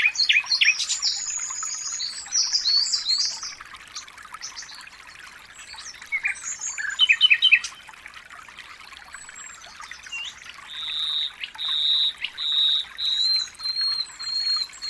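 Songbirds chirping and trilling over a steady trickle of running water, with a quick burst of calls about halfway through. Near the end, one bird repeats a clear, even whistled note about twice a second.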